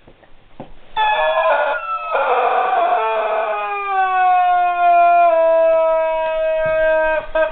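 German Shepherd whining in a long, drawn-out cry that starts about a second in, slides down in pitch and then holds steady for several seconds before breaking off near the end; the dog whines because it doesn't know what to make of a squeaky toy.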